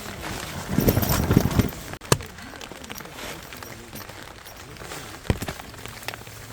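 Large dog shaking its body briefly about a second in, a short rattling rustle, followed by scattered sharp taps.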